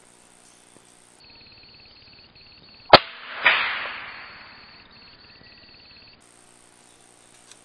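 A single rifle shot: one sharp crack about three seconds in, then half a second later a second, noisier burst that fades away over about a second and a half.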